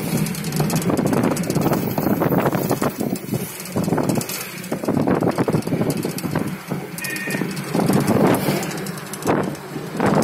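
A car driving along a road, heard from inside the cabin: steady engine hum under uneven road and wind rumble.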